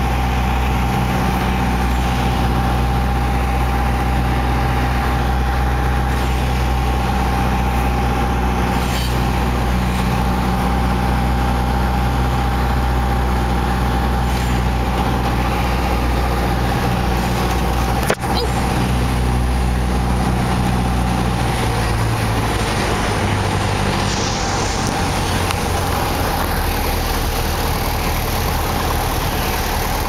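Piper PA28-161 Warrior II's four-cylinder Lycoming engine and propeller running steadily, heard from inside the cabin on landing approach, with one sharp knock about 18 seconds in. Around 22 seconds in the engine note drops lower as power comes off for the landing.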